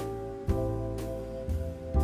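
Instrumental background music: sustained chords over a bass line, changing chord about every half second to second.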